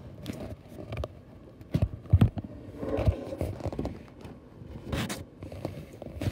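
Handling noise from the recording iPad being moved and set in place: irregular knocks, scrapes and rubbing close to the microphone, loudest about two seconds in.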